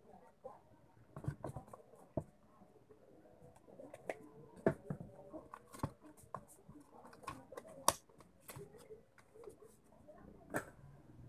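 Irregular clicks and light knocks of small plastic and metal parts being handled and fitted on an opened hand mixer's motor assembly.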